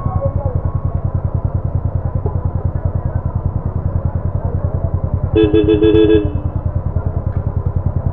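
Motorcycle engine idling with a steady, rapid low throb. A vehicle horn sounds once, loud, for just under a second about five seconds in.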